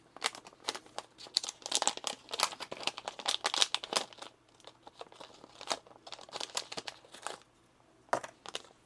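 Small plastic building-brick parts and crinkly plastic being handled while a light brick is fitted: a dense run of crackles and small clicks that stops about seven seconds in, with a short few more near the end.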